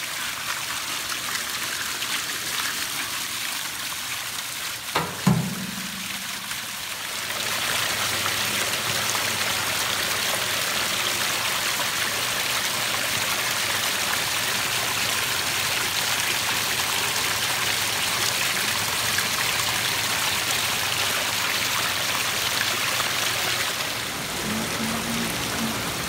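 Water from a pondless waterfall pouring out of its spillway and splashing down over boulders onto river rock: a steady rushing splash that gets louder about seven seconds in. A single sharp knock sounds about five seconds in.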